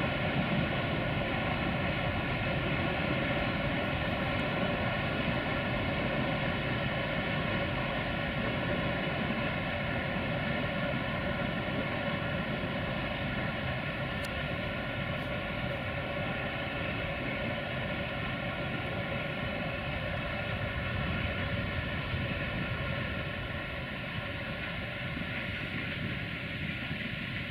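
Distant freight train hauled by an electric locomotive rolling along the line: a steady, even roar that eases slightly near the end.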